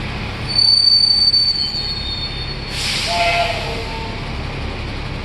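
Bus brakes squealing with a high, steady pitch as the vehicle slows, then a sudden hiss with a couple of lower squeal tones fading out, over a steady vehicle rumble.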